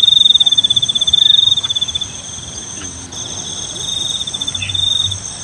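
Cricket trilling loudly in long, high, rapidly pulsed trills with short breaks between them.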